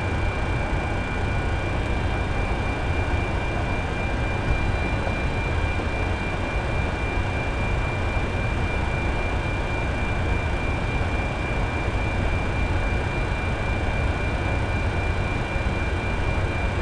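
Steady rumble and hiss inside the flight deck of a powered-up Boeing 747 (NASA 905, the Shuttle Carrier Aircraft) standing on the ground, with a constant high-pitched whine from its running systems.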